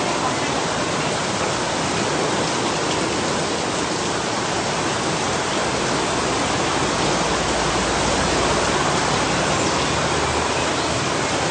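Steady rushing of water from a saltwater reef aquarium's circulation, an even hiss like a small waterfall.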